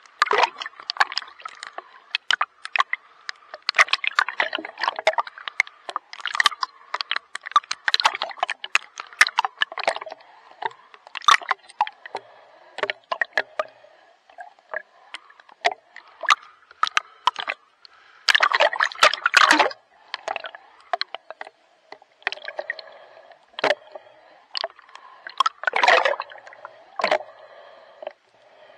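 Sea water splashing and sloshing close to the microphone in quick, irregular bursts, like a swimmer's strokes, with louder stretches of splashing about two-thirds of the way in and again near the end.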